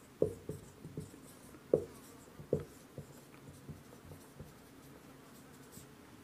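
Marker pen writing on a whiteboard: a run of short, sharp strokes and taps, most of them in the first three seconds, then fainter scratching.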